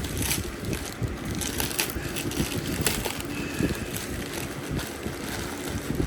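Packaging being handled and torn open, crinkling and rustling with irregular clicks and crackles.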